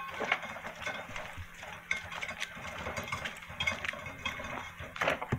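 A homemade wooden wheelbarrow built of 2x4s and shiplap being pushed over wet, uneven ground: irregular clattering and knocking from its wheel and frame, with footsteps, and a few louder knocks near the end.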